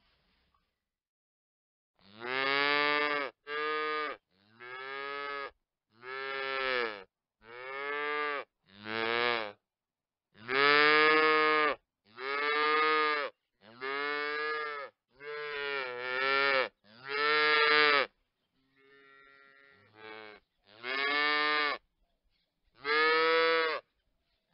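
Veal calves bawling: a string of about fifteen short moos, each about a second long and bending up then down in pitch, with brief silences between, starting about two seconds in.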